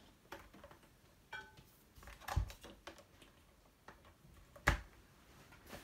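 Scattered light clicks and knocks of a power cord being handled and its plug pushed into a socket, with a low thump about two and a half seconds in and the sharpest click near the end.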